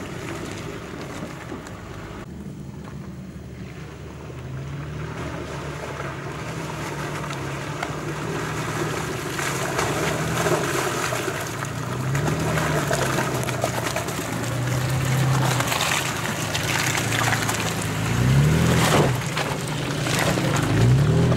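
Toyota FJ Cruiser's V6 engine revving up and down over and over as it drives through deep mud ruts, with mud and water churning under the tyres. It is loudest near the end as the vehicle passes close.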